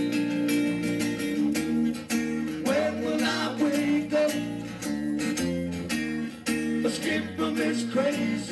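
Live acoustic band music: two acoustic guitars strumming, a hand shaker keeping a steady beat, and a man singing into a microphone.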